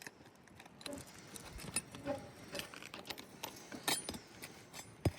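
Flat bar working under asphalt roof shingles: irregular small clicks, scrapes and metal clinks as the shingles are unsealed and nails pried out. A sharper knock comes near the end.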